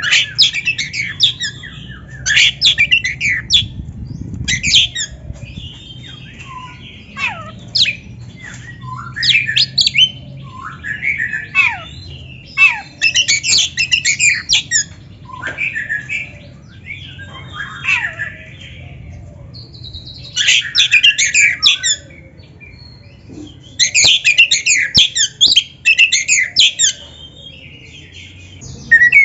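Oriental magpie-robin (kacer) in full song: loud bursts of rapid, varied high notes mixed with downward-gliding whistles, broken by short pauses of a second or two.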